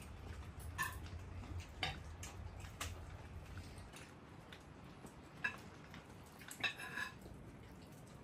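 Forks clinking against plates: about five short, scattered clinks, some with a brief ring. A faint low hum underneath stops about halfway through.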